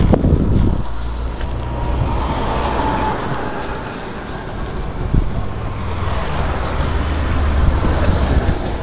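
Road traffic: vehicles running and passing along the street with a steady low rumble, and a bump right at the start.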